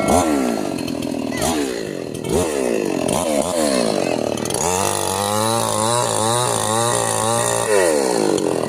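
Two-stroke chainsaw engine revving up and down repeatedly. From about halfway in, the engine holds at high speed with a wavering pitch, then drops back near the end.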